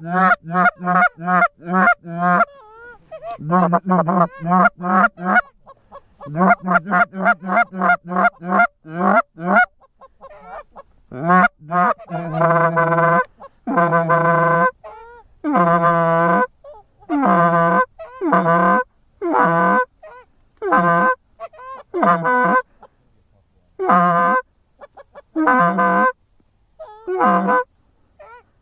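Goose honking: rapid runs of short clucking honks, about four a second, then longer drawn-out honks spaced roughly a second apart.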